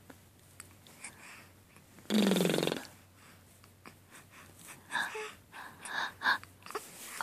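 A short, rough, creaky grunt about two seconds in, its pitch dropping, with a few soft breathy snuffles and mouth sounds later on.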